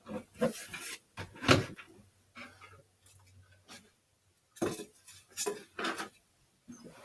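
A homemade play-button plaque being handled and set down: a series of short knocks, clatters and scrapes with pauses between them.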